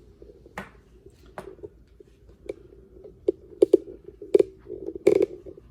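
Packaging of a boxed Intel i9 processor being opened and handled by hand: an irregular series of sharp clicks and crinkles from the cardboard box and plastic tray, the loudest about five seconds in.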